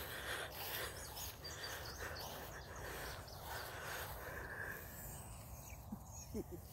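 Steady outdoor background noise with a few faint, short, high chirps about a second or two in, and a couple of brief low sounds near the end.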